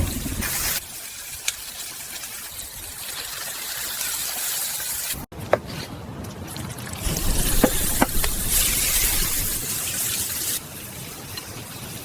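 Water trickling and pouring, with a few light knocks and clicks; the sound breaks off sharply about five seconds in, then resumes louder.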